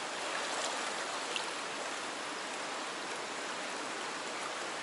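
Fast river current rushing and swirling past a rock ledge: a steady rush of moving water.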